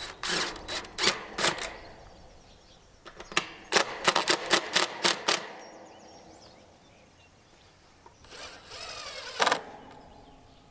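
Sharp clicks and knocks from handling a welded wire fence at a wooden post, in two runs, the second a quick irregular rattle. Near the end a cordless drill whirs for about a second.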